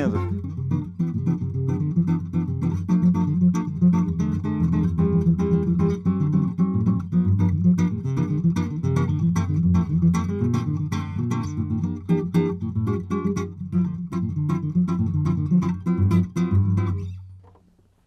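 Acoustic guitar played fingerstyle in a percussive samba style, a steady bass line thumbed under rhythmically plucked chords, the fingers almost biting the strings. The playing stops about a second before the end.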